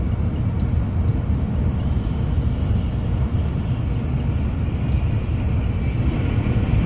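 Cabin noise of a Nozomi shinkansen running at speed: a steady low rumble from the train on the track, heard from inside the car, with a few faint light clicks.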